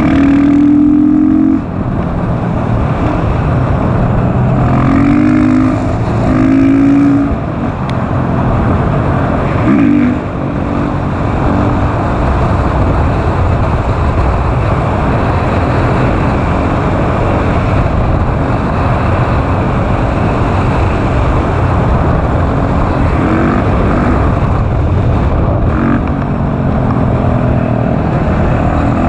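KTM SMC R supermoto's single-cylinder engine run hard, the engine note rising and dropping back at gear changes several times in the first ten seconds, then holding steady at speed. Heavy wind rush on the riding camera mixes with it.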